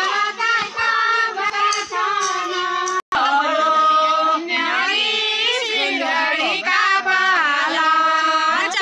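A group of women singing a folk dance song together, with long held, gliding notes. The sound cuts out for an instant about three seconds in, then the singing carries on.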